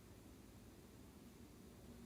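Near silence: faint steady hiss and low hum of room tone.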